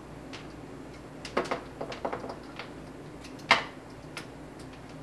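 Irregular clicks and taps from pressing the front-panel buttons of a Siglent signal generator while setting it to a sine wave, about ten in all, the loudest about three and a half seconds in.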